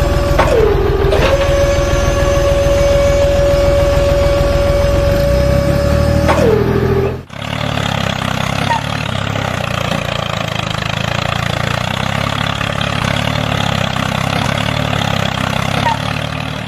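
Tractor engine running, with a steady whine over the rumble that drops in pitch and recovers twice. About halfway through it cuts suddenly to a rougher, noisier engine sound.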